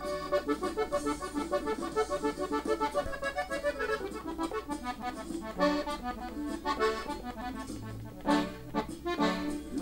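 Gabbanelli diatonic button accordion, tuned in E, playing a melodic ornament on its treble buttons: a quick run of notes, then a few shorter phrases with brief gaps between them.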